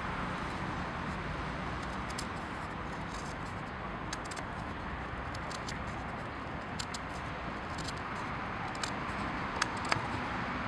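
Steady low background rumble with scattered small clicks and scrapes of a knife blade trimming a notch in a pine slat. The clicks come more often and a little louder near the end.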